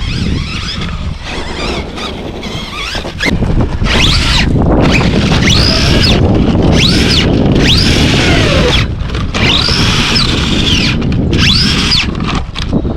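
Losi LMT RC monster truck's brushless electric motor whining up and down about six times as it accelerates and slows, over rumble and wind on the microphone.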